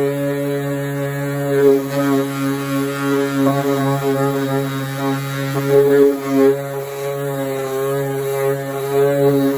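Electric orbital sander with 240-grit paper running steadily on a Corvette body panel: a loud, even motor hum whose pitch wavers slightly as it is worked across the surface.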